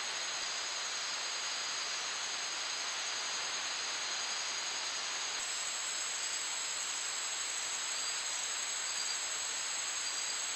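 Steady forest ambience picked up by a trail camera's microphone: an even hiss with a high, continuous insect drone that grows a little stronger about five seconds in.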